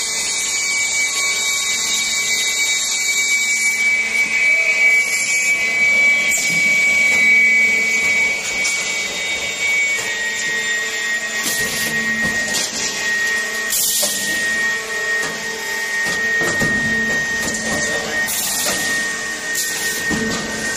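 CNC busbar processing machine running: a steady high whine under general machine noise, with several sharp knocks spread through.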